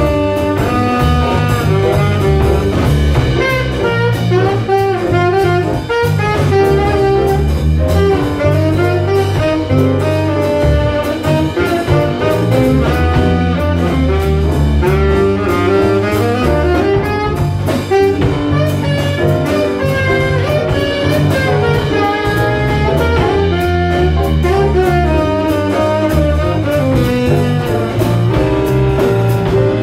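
A small jazz combo playing live: a saxophone carries the lead line over electric bass, drum kit and piano.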